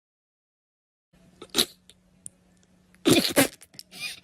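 French bulldog making short, noisy blows through the nose: a brief one about a second and a half in, then a louder double one about three seconds in, and softer ones near the end.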